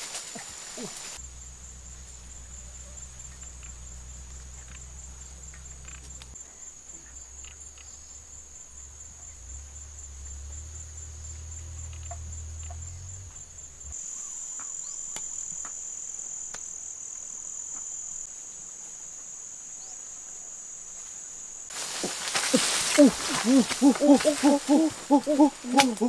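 Steady, high-pitched drone of insects in tropical vegetation. Near the end a much louder burst breaks in: a noisy wash with repeated pitched calls whose pitch bends up and down.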